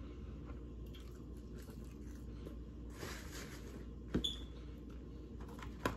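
Quiet chewing of McDonald's French fries, with a short rustle about three seconds in and a sharp click about a second later.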